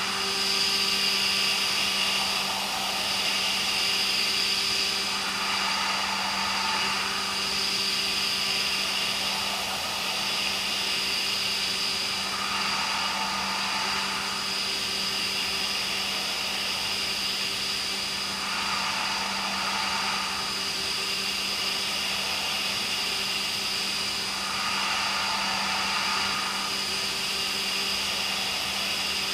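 CB Ferrari GT2000 CNC machining center milling H13 tool steel: a steady spindle and machine hum with a high cutting hiss, and cutting noise that swells about every six or seven seconds as the cutter works through its passes.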